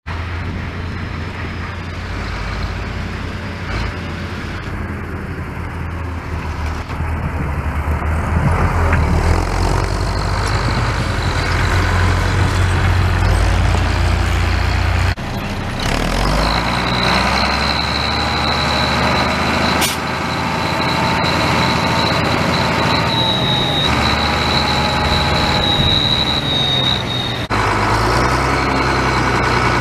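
Case IH 1455 XL tractor's six-cylinder turbo diesel engine running steadily. A high, steady whine rides over the engine from about halfway through, and the sound shifts abruptly twice.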